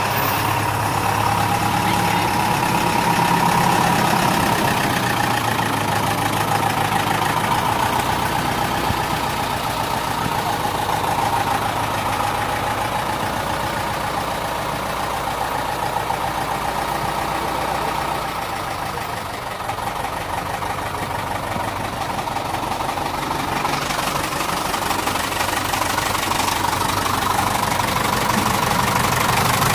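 David Brown 1212 tractor's diesel engine running steadily at idle.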